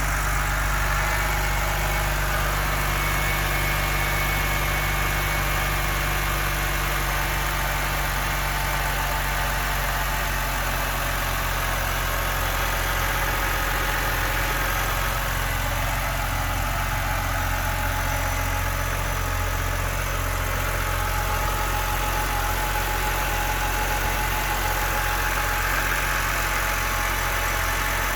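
BMW car engine idling steadily, heard from outside the car, with a strange noise that the owner cannot account for.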